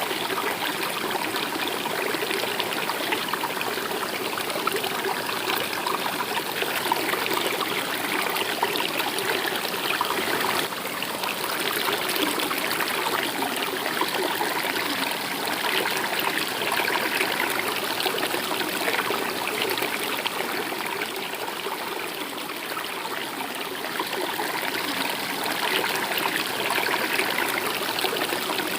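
A stream flowing and trickling steadily.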